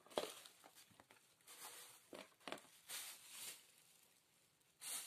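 Faint handling noise: plastic food-storage containers and utensils rustling and knocking as they are moved about and packed, in a series of short scrapes and rustles, with a steadier plastic crinkle starting near the end.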